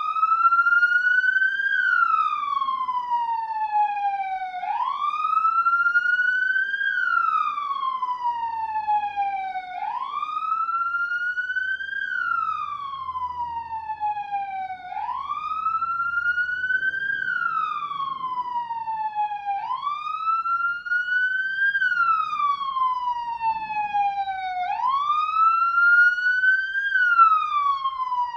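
Police siren sounding a slow wail, its pitch rising over about two seconds and falling over about three, repeating about once every five seconds.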